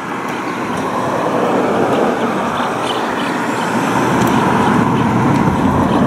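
Road traffic: a motor vehicle passing close by, its steady tyre and engine noise swelling gradually louder.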